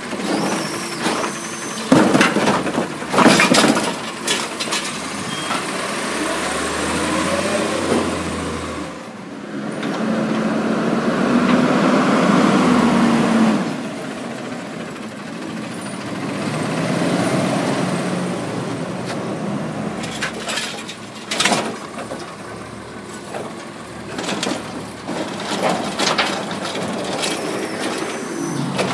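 Automated side-loading garbage truck working: the hydraulic arm bangs a recycling cart against the hopper to empty it, and the diesel engine revs and runs as the arm cycles and the truck moves up the street. More bangs come near the end as the arm grabs and lifts the next cart.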